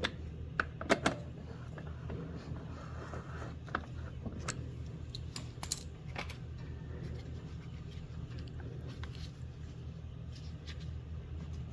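Scattered metallic clicks and clinks of tools and mower parts being handled, the loudest cluster about a second in, over a steady low hum.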